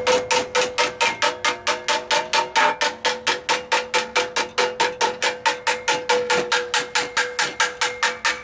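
Rapid, steady hammer blows on a steel sheet-metal patch held in a vise, about five a second, each strike leaving a metallic ring: a bead being tapped into a floor-pan patch with a hammer and block.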